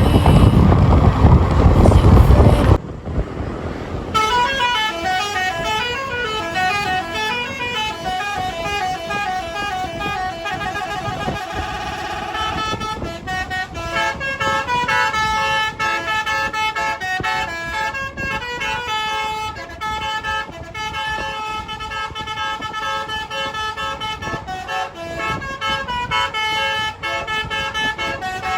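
Bus's Basuri telolet air horn playing a quick melody of stepping, switching tones from about four seconds in, with held notes and rapid changes later on. It opens with a loud rushing noise that cuts off about three seconds in.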